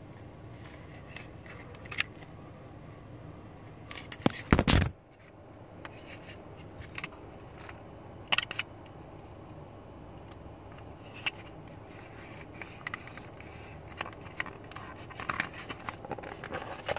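Handling noise: scattered small clicks, scrapes and light knocks over a low steady background noise, with a cluster of sharper knocks about four and a half seconds in.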